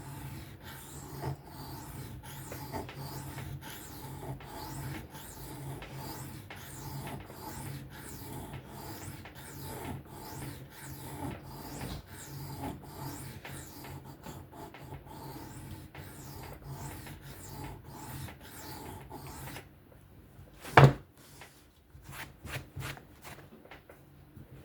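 Knife blade being stroked back and forth across a diamond sharpening plate in steady freehand strokes, about two a second, a gritty rasping rub. About twenty seconds in the strokes stop, followed by one sharp loud knock and a few light clicks.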